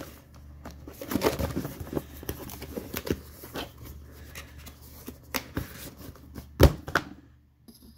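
Cardboard box being closed and handled by hand: scattered rustles and light taps of the cardboard, with one louder knock about two-thirds of the way through.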